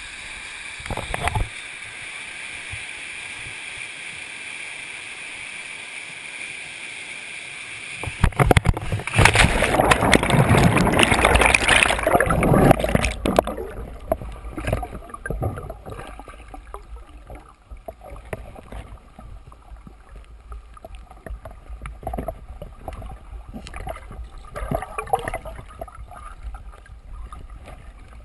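Rope swing into a jungle pool, heard from the rider's point of view. A steady high drone comes first. About eight seconds in, a loud rush of air and water noise lasts some five seconds as the rider swings and plunges in. Muffled underwater gurgling and bubbling follow.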